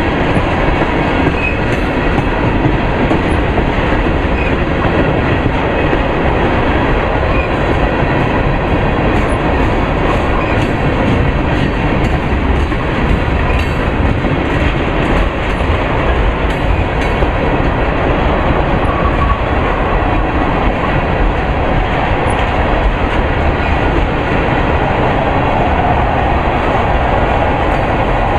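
Freight train of ethanol tank cars rolling past close by: a steady loud rumble of steel wheels on the rails, with light clicking as the wheels cross rail joints.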